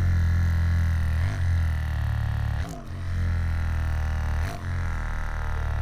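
Percussion massage gun running steadily against the back and shoulder muscles with a low buzzing drone, its pitch dipping briefly three or four times as it is pressed in or moved.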